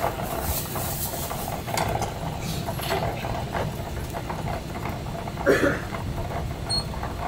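Commercial kitchen noise: a steady low rumble of burners and extraction under scattered clinks of plates and utensils, with a louder clatter about five and a half seconds in.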